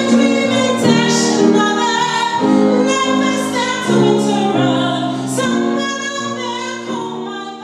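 A woman singing a musical-theatre song with piano accompaniment, the sound fading away near the end.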